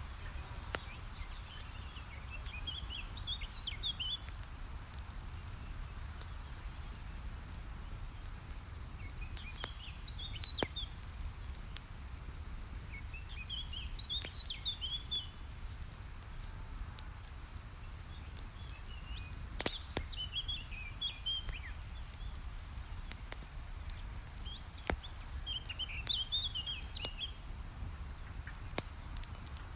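Campfire crackling, with occasional sharp pops standing out over a low steady rumble. A songbird sings short chirping phrases about every five or six seconds.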